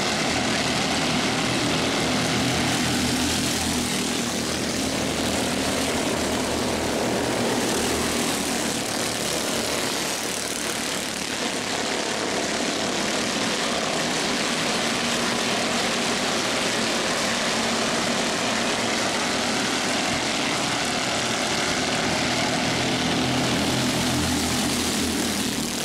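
CEMCA Mini Cup race cars running laps on the oval, heard as a continuous, steady engine drone.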